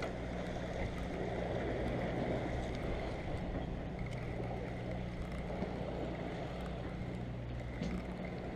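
Steady low drone of the fishing boat's motor, with wind and water noise on the microphone.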